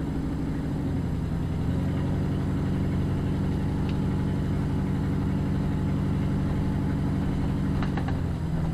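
Car engine running steadily with road noise, heard from inside the cabin while the car cruises slowly: an even low hum.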